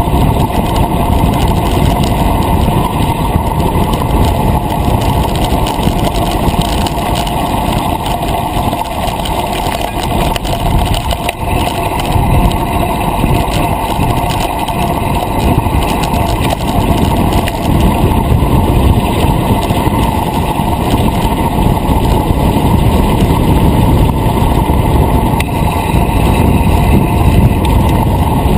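Wind buffeting a bicycle-mounted action camera's microphone while riding along an asphalt road: a loud, steady, gusting rumble with road noise under it.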